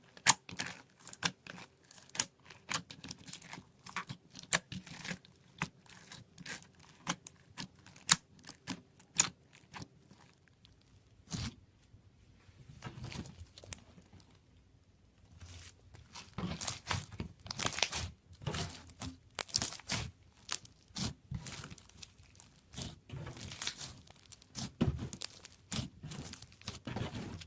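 Slime being squeezed and worked by hand, giving irregular sharp crackles and pops, with a short lull about halfway through.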